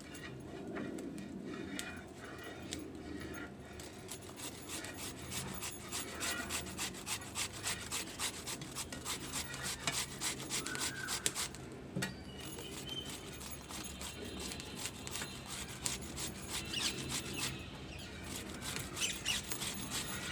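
Carrots being grated by hand on a grater: a long run of rhythmic rasping strokes, several a second, with brief pauses.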